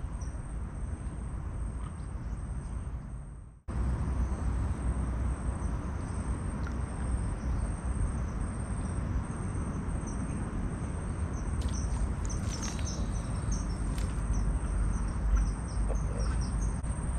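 Outdoor riverside ambience: a steady low rumble with short, high chirping calls that come thicker in the second half. The sound breaks off for an instant about three and a half seconds in.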